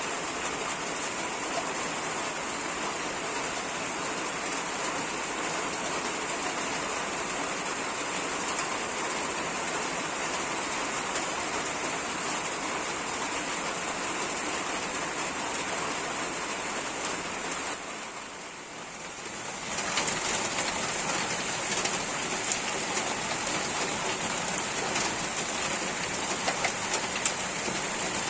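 Steady heavy rain, an even hiss. About two-thirds of the way through it fades briefly for a second or two, then returns a little louder with individual drops ticking.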